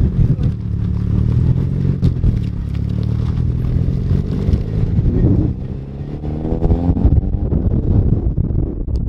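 Nissan Silvia S15's SR20DET four-cylinder engine running as the car drives on its newly fitted clutch and rebuilt six-speed gearbox. The engine note dips briefly about halfway through, then rises in pitch as the car accelerates.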